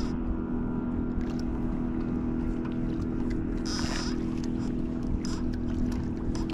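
A boat motor hums steadily while a hooked fish is played beside the boat, splashing at the surface about four seconds in.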